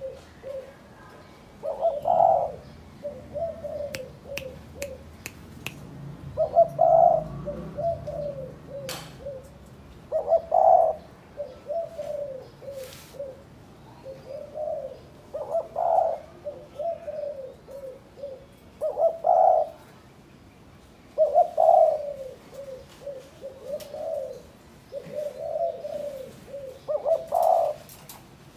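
Spotted dove cooing: about eight song phrases, each opening with a louder note and trailing off into a run of softer, lower coos, repeated every three to four seconds.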